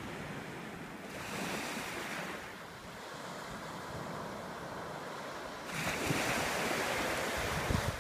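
Small waves breaking and washing up onto a sandy beach, the surf swelling about a second in and again near the end.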